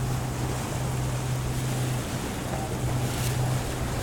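A boat's engine running with a steady low hum, under wind on the microphone and the rush of water. The hum drops out briefly about two seconds in.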